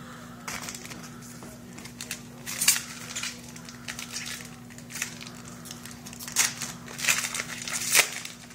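Trading card pack wrappers being torn open and crinkled by hand, in irregular rustling bursts with two louder tears, one near the start and one near the end.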